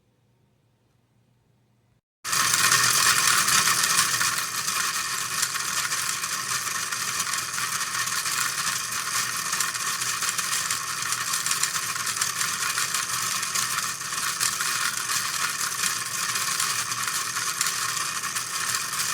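Small DC motor driving a 3D-printed plastic gearbox, the gears running steadily with a mostly high-pitched sound. It starts suddenly about two seconds in, after near silence.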